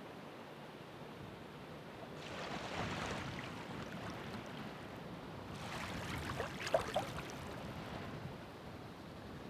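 Ocean waves breaking and washing ashore: a steady hiss of surf that swells twice, once about two seconds in and again just past halfway, with a short sharp click at the height of the second surge.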